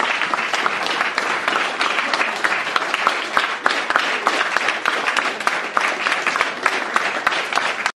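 Audience applauding: dense, steady clapping from many hands, which cuts off suddenly near the end.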